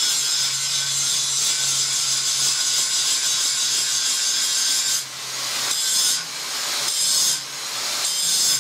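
Angle grinder grinding a metal block with an abrasive disc: a loud, hissing high-pitched grind over the motor's steady hum. The grinding noise drops briefly three times, about five, six and seven and a half seconds in, and builds back up each time.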